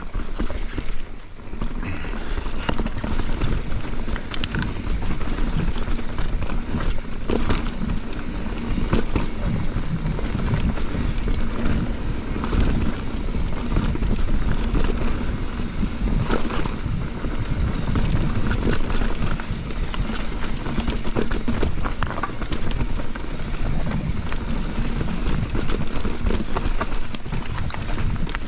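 Mountain bike riding fast down a rocky dirt trail: a steady low rumble of tyres and wind, broken by frequent knocks and rattles from the bike.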